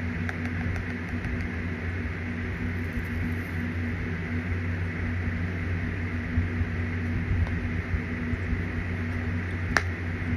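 A steady machine hum with an even hiss over it, and one sharp click near the end.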